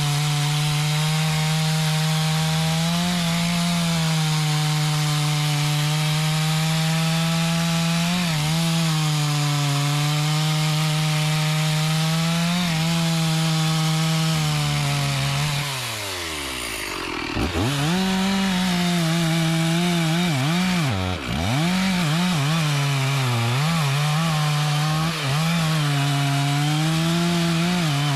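A two-stroke chainsaw running at high revs while cutting mahogany wood, its engine pitch mostly steady. About halfway through the engine slows sharply, nearly to a stop, then picks back up, and it dips again briefly a few seconds later.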